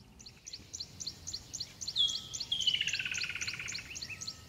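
Birds chirping: a quick run of short high chirps, about five a second, joined about two seconds in by a longer trill that falls in pitch.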